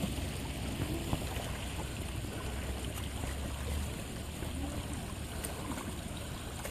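Shallow stony stream running steadily, with a low rumble underneath and a few faint splashes as a person and a horse wade through the water.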